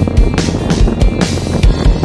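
Background music with a steady, driving drum beat.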